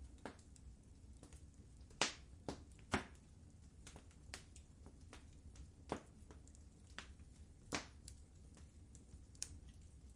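Wood fire in a fireplace crackling: irregular sharp pops and snaps over a low, steady rumble of the flames, the loudest pops about two and three seconds in.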